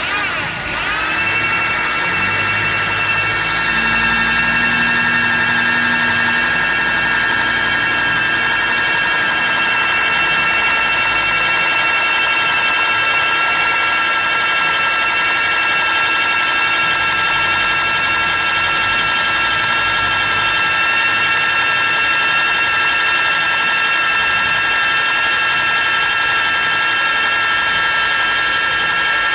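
Large computer-controlled welding machine running with a steady high-pitched electrical whine made of several constant tones over a low hum; the pitch dips and settles about a second in.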